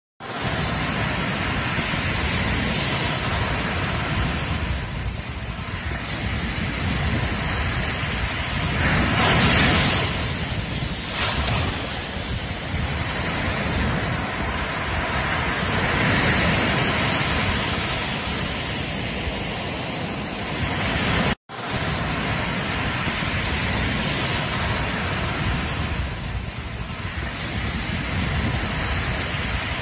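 Sea surf breaking and washing up a sandy beach, the noise swelling and ebbing with each wave, with wind rumbling on the microphone. The sound cuts out for a moment about two-thirds of the way through.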